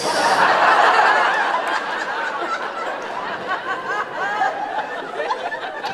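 Audience laughing, many voices at once, breaking out loudest at the start and tapering off over the following seconds.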